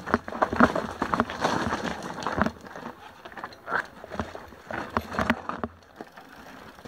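Mountain bike rolling slowly over loose rock and gravel: tyres crunching on stones and the bike rattling, with many sharp knocks. Busiest and loudest for the first two or three seconds, then quieter with scattered clicks.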